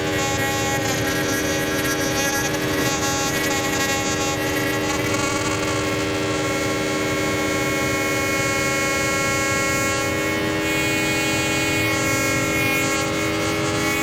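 Modular synthesizer holding a sustained drone chord: many steady tones stacked together, loud and unbroken, with faint shifting in the highest tones.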